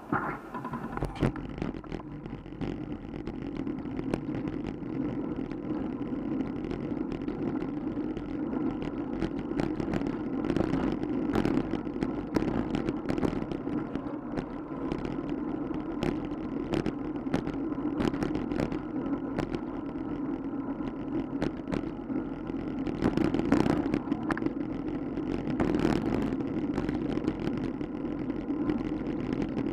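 Steady road and wind noise from a camera mounted on a moving bicycle, with frequent small rattles and knocks from the ride over the street surface. It comes in suddenly at the start.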